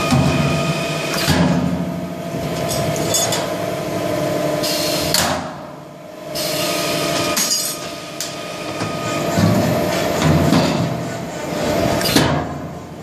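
Pneumatic corner fixing machine pressing metal corner pieces into HVAC duct flanges: several sharp metal clanks a few seconds apart over a steady machine hum.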